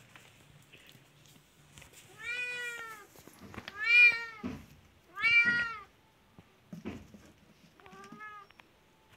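Cat meowing four times, each call rising then falling in pitch. The second and third calls are the loudest, and the last is shorter and softer.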